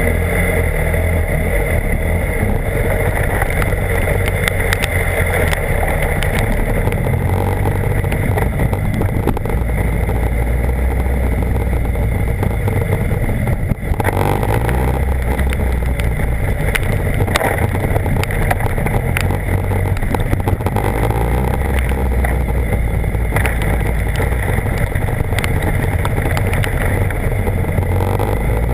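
BMW HP4's inline-four engine running under way, with wind and road noise over it; the engine note shifts in steps as the speed changes, with a brief drop about halfway through.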